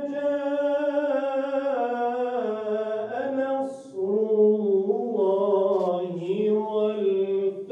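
A solo male voice chanting unaccompanied, holding long notes that slide and waver between pitches. It breaks briefly just before the midpoint, then carries on at a lower pitch.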